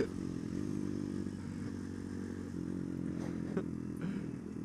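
Motorcycle engine running steadily at low revs, its note shifting slightly about halfway through, with a couple of faint clicks near the end.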